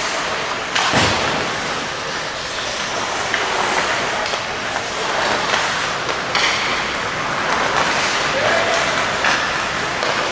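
Ice hockey game play in an arena: skates scraping the ice under scattered clacks of sticks and puck, with a loud thud about a second in, typical of the puck or a player hitting the boards.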